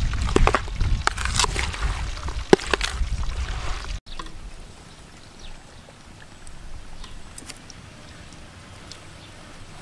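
Hands tossing and squeezing shredded raw vegetables in a plastic bowl: crisp rustling and crunching with sharp crackles. About four seconds in this stops abruptly, leaving a quieter steady background with a few faint ticks.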